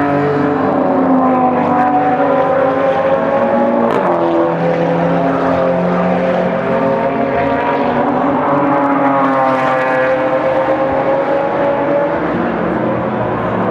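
Several racing car engines running hard on the circuit, overlapping, their notes rising and falling as they accelerate, shift and pass.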